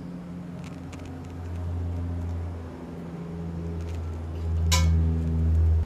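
A steady low hum that swells and fades, stopping abruptly near the end, with a single sharp clink of a utensil on cookware about four and a half seconds in.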